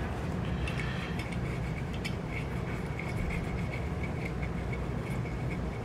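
Steady low background rumble, with faint small clicks and rustles of lens tissue and a cotton swab being worked inside a camera's rangefinder housing.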